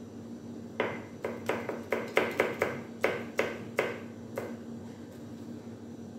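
Kitchen knife chopping on a plastic cutting board: about a dozen quick, sharp knocks with a short ring, starting about a second in and stopping after some three and a half seconds.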